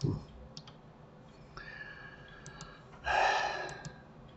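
A man's breathy sigh about three seconds in, with a few faint computer mouse clicks around it.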